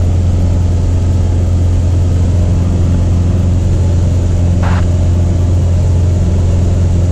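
Cessna single-engine light aircraft's piston engine and propeller droning steadily in flight, heard inside the cockpit.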